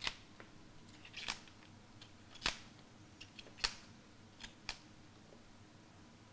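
Artichoke leaves snapping as they are pulled off by hand: a handful of short, sharp snaps at irregular intervals, with two close together near the end.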